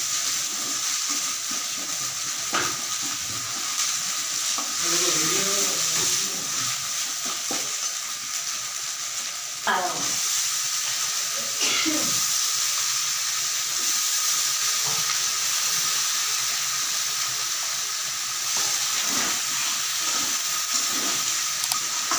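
Food frying in oil in an aluminium kadai on a gas stove: a steady sizzle while a spoon stirs and scrapes the pan, with a few sharp metal clinks.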